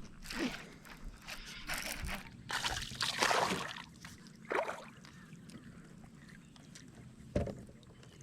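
Water splashing and sloshing in several short bursts over the first few seconds, then a single low thump near the end.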